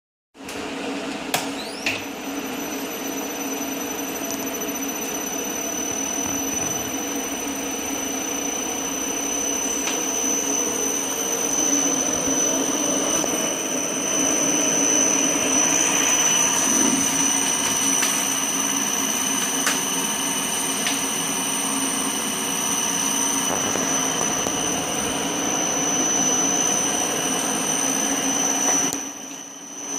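Repaired Hyundai N700E industrial inverter (variable-frequency drive) running on a test bench, with a steady machine hum and a steady high-pitched whine over it. Two clicks sound near the start, and the level dips briefly just before the end.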